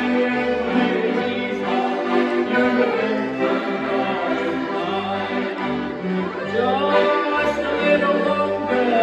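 Two piano accordions playing a gospel song together, with a man singing over them in held, sustained notes.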